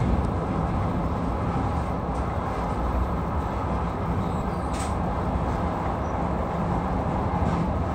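Passenger train running across a steel truss railway bridge, heard from inside the carriage: a steady rumble of wheels on the rails.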